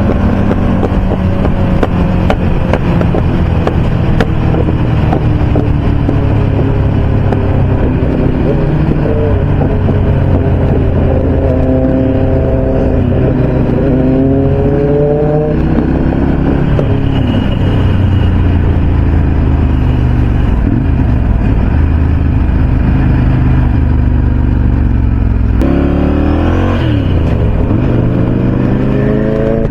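Motorcycle engines running at highway speed, a steady loud drone. Engine notes climb twice as revs rise, about halfway through and again near the end.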